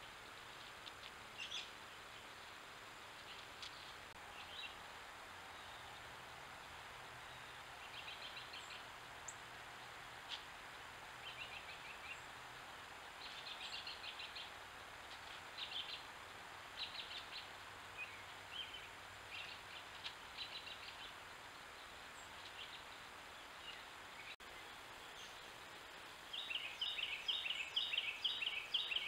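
Wild birds chirping and calling now and then over a steady outdoor hiss, with a louder, rapid run of calls near the end.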